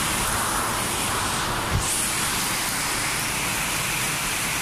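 Heavy rain falling steadily as a constant hiss on a flooded street, with a short low thump about two seconds in.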